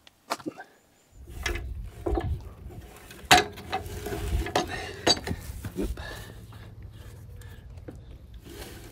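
Plastic clicks, knocks and rattles of a mitre saw being handled and its power cord unwound, the saw not running, over a low steady rumble that starts about a second in.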